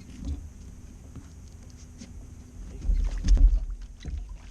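Low rumble and scattered knocks around a small fishing boat, with a louder surge of rumble and a few sharp knocks about three seconds in.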